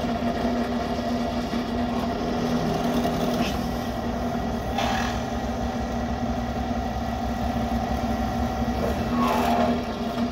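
WEN benchtop drill press running with a steady motor hum. A few times, its bit bites noisily into a plastic electrical conduit box as the hole is drilled.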